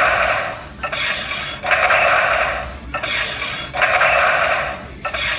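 Electronic sound effect from the DX Terraphaser toy robot's small built-in speaker: a harsh, buzzy tone that repeats in a cycle of a short burst then a longer one, about every two seconds.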